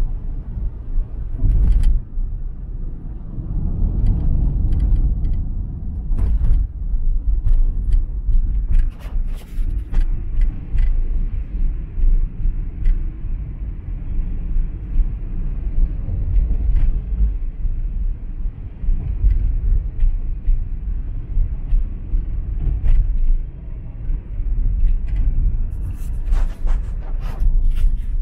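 A vehicle driving through rain: steady low road and engine rumble with a hiss of wet tyres, and scattered light clicks and taps that come thicker near the end.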